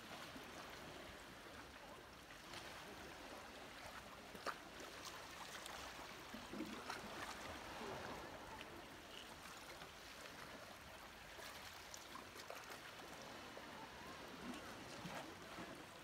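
Shallow seawater lapping gently over rocks at the shore: a faint, steady wash with a few small sharp clicks, the sharpest about four and a half seconds in.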